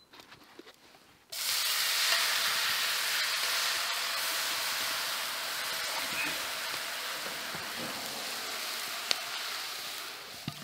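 Liquid hissing and sizzling as it boils off in a hot cast iron skillet over a wood fire. It starts suddenly about a second in and slowly dies down, with one sharp tick near the end.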